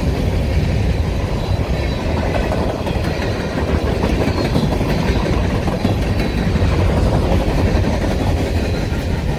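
Freight train cars rolling past close by: steel wheels running on the rails with a steady rumble as covered hoppers and a tank car go by.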